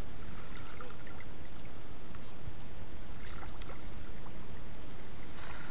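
Steady water sloshing and swirling around a fishing net as it is handled in shallow water, heard with the microphone close to the water's surface.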